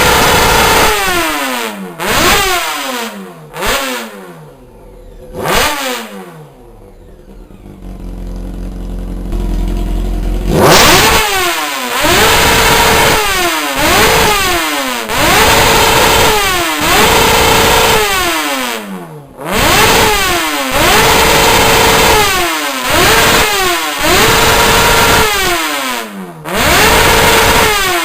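Honda CBR 600's inline-four engine, through a Sarachú aftermarket exhaust, revved again and again: each blip rises in pitch, often holds high for about a second, then falls back. Near the middle it drops for about four seconds to a quieter, lower running before the revving starts again.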